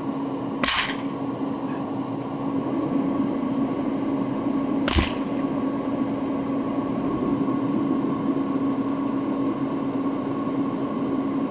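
Two sharp .22 LR rifle shots from a Marlin Glenfield Model 60 semi-automatic, about four seconds apart, the second the sharper, fired from inside a truck cab. Under them runs the steady hum of the idling truck and its heater fan, with a held tone.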